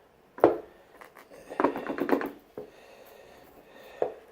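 Hands handling a camcorder box and its packaging: a few sharp clicks and knocks, with a short stretch of rustling about halfway through.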